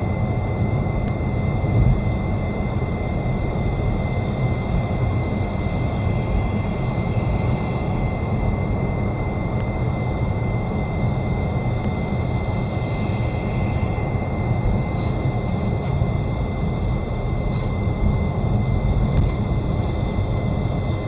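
A car driving with a steady low rumble, over which a thin high whistle holds one unchanging pitch. The whistle comes on with engine braking after lift-off and does not follow engine speed. Its cause is unknown: the owner suspects the alternator belt and idler, the alternator, the AC compressor, the oil pump's second stage or the turbo.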